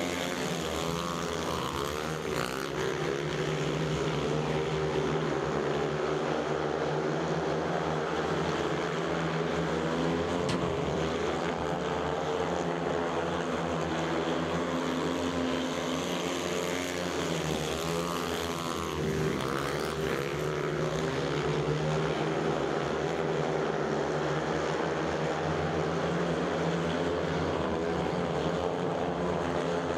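Pack of 500 cc single-cylinder speedway motorcycles racing, their engines droning together with the pitch rising and falling over and over.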